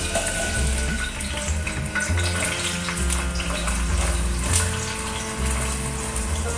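Chopped onions sizzling as they are dropped into hot oil in a steel pot, over background music with a steady bass beat.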